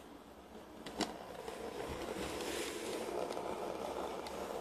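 Model railway locomotive running along the track, its small electric motor and gears giving a steady hum. There is a sharp click about a second in and a few lighter ticks later.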